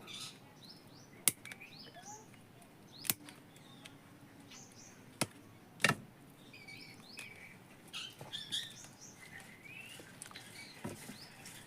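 Wire cutters snipping through a ceiling fan's lead wires: four sharp snips a second or two apart. Small birds chirp faintly in the background.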